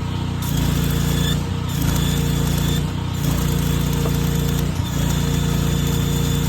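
Welder working on a steel excavator thumb: an arc buzzing and hissing in runs, cutting out briefly about three times and starting again.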